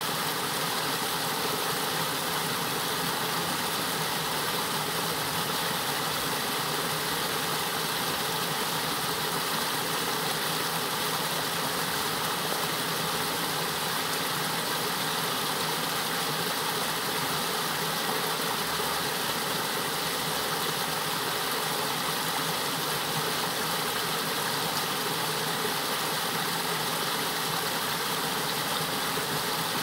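Small stream pouring down a cascade over sloping bare rock: a steady rushing of water that holds an even level throughout.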